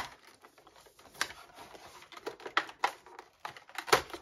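Stiff cardboard advent calendar door being picked and pried open by hand: scattered sharp clicks and taps with faint scratching, the loudest just before the end.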